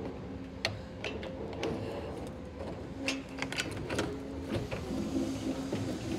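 Scattered metal clicks and clinks from a garage door section being lowered and its roller wheels worked into the track, over a faint steady hum.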